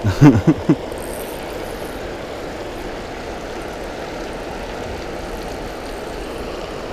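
Steady rushing of water pouring over a spillway, with a brief voice-like sound about half a second in.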